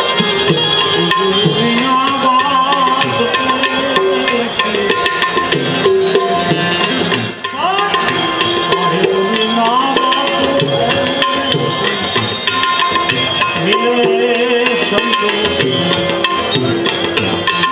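Live devotional bhajan music, with tabla playing a steady rhythm under a sustained drone and a sliding, ornamented melody line.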